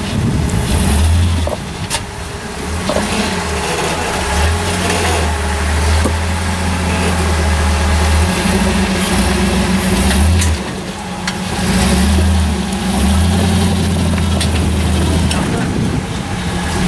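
Rock buggy's engine running at low revs as it crawls over boulders, with the throttle pushed on and eased off in stretches of about one to four seconds.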